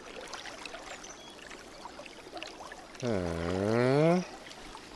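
River water flowing steadily. About three seconds in, a loud pitched hum with many overtones sounds for just over a second, dipping and then rising in pitch.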